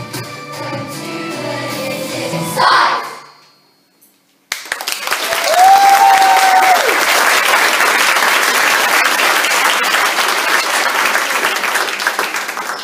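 A song with singing and backing music ends on a final accent about three seconds in. After a second of silence, an audience breaks into loud applause and cheering, with one long whoop early in it.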